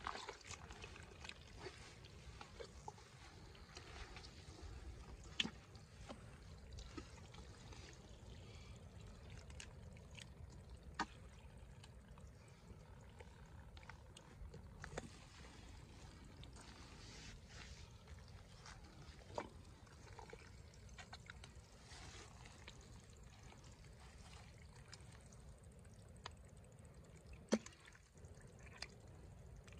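Faint wet squelching and trickling of mud and shallow water as hands work through a muddy pond bed, with a handful of sharp clicks scattered through it.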